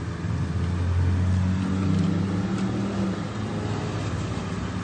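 Car engine running at low speed, briefly pulling harder about a second in with its note rising a little, then easing off.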